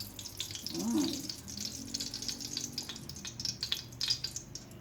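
Faint, irregular crackling and sizzling of cooking oil heating in a pan.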